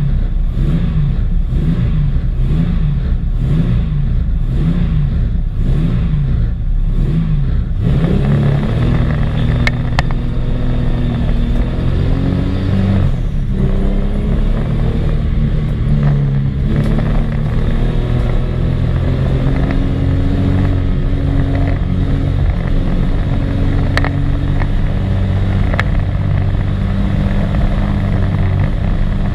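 Jaguar XJ6 race car's 4.2-litre straight-six engine heard from on board. For about eight seconds the revs rise and fall in a regular rhythm. The car then pulls away under hard acceleration, with a brief dip in the engine note at a gear change and a sustained, rising engine note after it.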